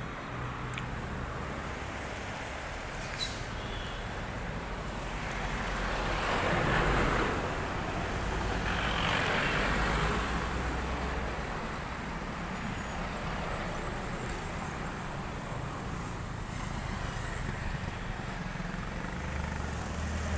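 Road traffic on a hill road: a steady hum of engines and tyres, with two vehicles passing that swell up about a third of the way in and again near the middle.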